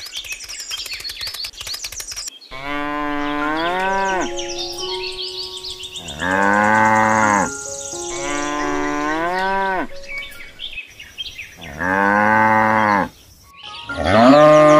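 Cattle mooing: five long moos one after another, the last still going at the end. A fast rattle of clicks comes before them in the first two seconds.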